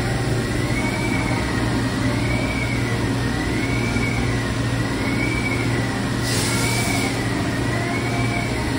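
CNC machine tool running with a steady low hum and a high tone that wavers up and down about once a second. A short hiss comes in about six seconds in.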